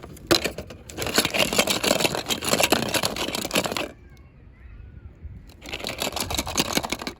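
Toy packaging being handled and opened, crinkling and rustling in two spells with a quieter pause of about two seconds between them.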